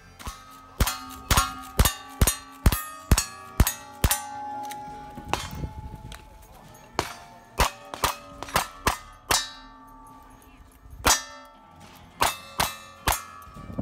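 Rapid gunshots in cowboy action shooting, from a rifle and then a revolver, each answered by the ring of a hit steel target. About eight quick shots come in the first four seconds, then after a short gap further strings of shots, each with its ringing steel.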